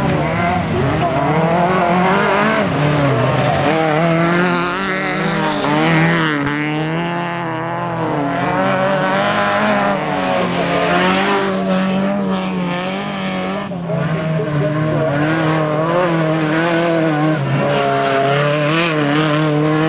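Autocross race cars' engines revving hard on a dirt track, the pitch rising and falling with throttle and gear changes as the cars pass.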